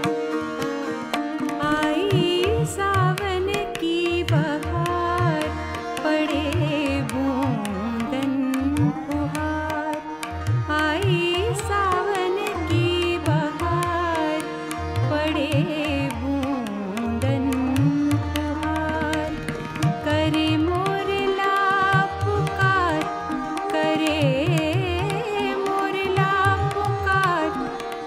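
Hindustani classical music for Kathak: a voice sings a bandish with ornamented, wavering melodic lines over a steady drone, and tabla strokes keep a continuous rhythm underneath.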